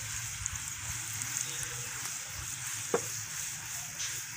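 Hot oil sizzling in an aluminium pan as a tadka of sliced onions, dried red chillies, bay leaf and cumin fries, with a steady high hiss, small crackles and one sharper click about three seconds in.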